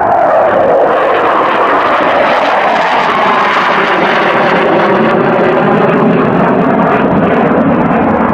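Loud jet noise from a Eurofighter Typhoon's twin turbofan engines as it flies a display pass. A tone sweeps down in pitch over the first second or so as the jet goes by, then a steady, full roar holds.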